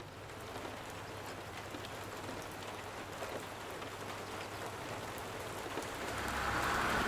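Steady rain falling on a street, an even hiss with scattered drop ticks. Near the end a car on the wet road approaches, its tyre hiss and low rumble growing louder.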